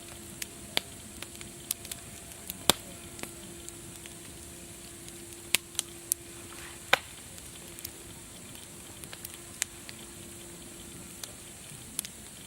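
Wood fire crackling: irregular sharp pops and snaps over a soft steady hiss, the loudest snap about three seconds in.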